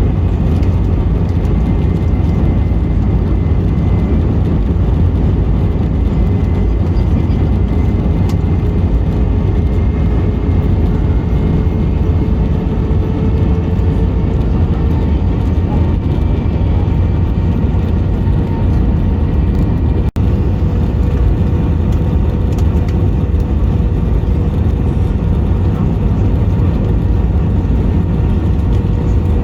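Airbus A321 cabin noise in flight: a steady deep rumble of the engines and airflow, with a faint engine tone that slowly rises in pitch. The sound drops out for an instant about twenty seconds in.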